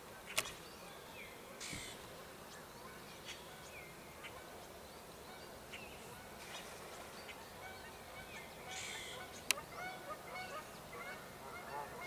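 Canada geese honking, the calls coming more often near the end. Two sharp clicks, one just after the start and one late on, are the loudest sounds.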